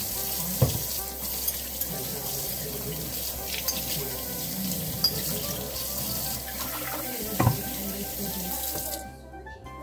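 Kitchen faucet running into a stainless steel sink while a glass vase is rinsed under the stream, with two brief knocks along the way. The water shuts off near the end.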